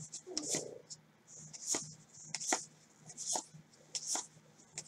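Gloved hands flipping baseball cards one at a time through a stack, each card giving a short papery slide about every three-quarters of a second.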